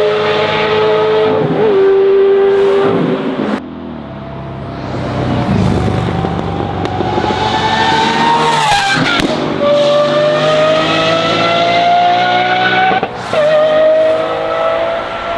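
Lamborghini Aventador Ultimae's V12 with a Valvetronic Designs F1 race exhaust accelerating hard, the exhaust note climbing in pitch through each gear and dropping sharply at each upshift, several times over.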